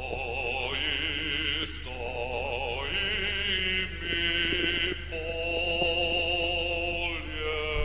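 Background music: a Slovenian vocal octet singing sustained notes with vibrato, changing notes every second or two, over a low steady hum.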